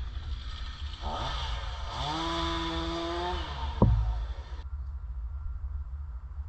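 Chainsaw engine revving up from idle, held at high speed for about a second and a half, then dropping back. A sharp knock comes near the end of the rev.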